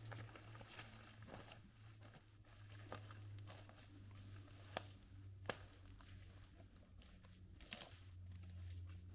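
Faint, sparse crunching of footsteps on dry leaves, twigs and rock, with a few sharper cracks, the loudest about five and seven and a half seconds in, over a low steady hum.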